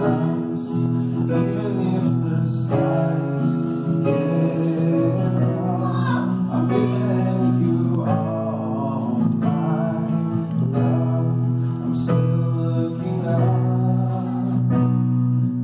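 Live band playing a slow song: a man sings lead into a microphone over strummed acoustic guitar and held keyboard chords.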